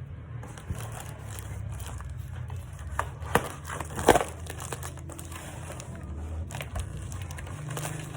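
Packaging being crinkled and torn open, with irregular crackles, the loudest about three to four seconds in, over a steady low hum.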